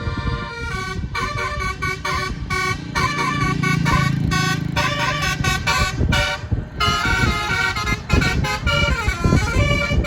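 A tour bus's nine-note "telolet basuri" multi-tone horn playing a tune of quick changing notes.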